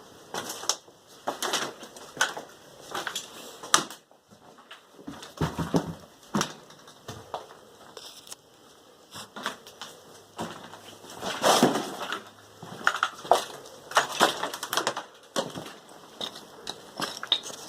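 Footsteps crunching and cracking over debris in a fire-damaged building, in an irregular run of crunches and knocks.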